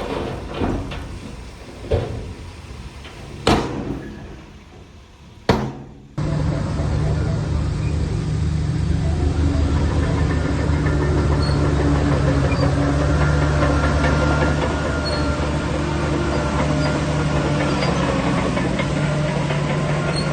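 Four sharp knocks spaced a second or two apart, then, after an abrupt cut about six seconds in, a heavy diesel engine of earthmoving machinery running with a steady, even low drone.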